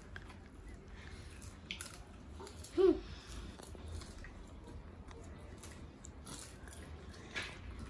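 Popcorn being eaten: soft crunches and chewing with faint scattered clicks as the popcorn is picked from the plates, over a steady low hum. About three seconds in comes one brief high-pitched vocal sound that rises and falls in pitch.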